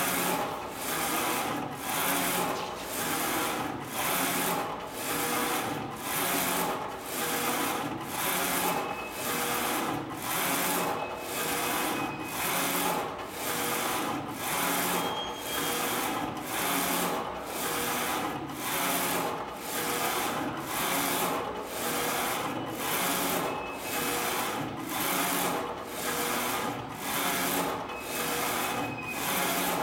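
HDJ-A4 flatbed digital textile printer's print-head carriage running back and forth along its rail while printing, a rhythmic mechanical whir that swells and dips about once a second as the carriage turns at each end of its pass.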